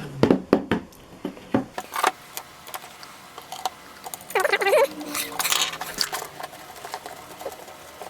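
Small clicks and knocks from handling a plastic digital chess clock while taking its case screws out with a screwdriver. A quick run of sharp clicks comes first, and a short, wavering squeak comes about four and a half seconds in.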